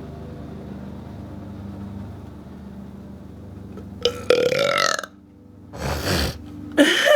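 A woman burping on purpose: one long, loud belch about four seconds in, then two shorter sounds near the end.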